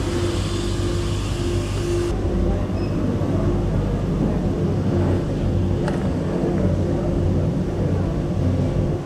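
Steady machinery hum with a held low tone, under faint background voices. The high hiss drops away suddenly about two seconds in.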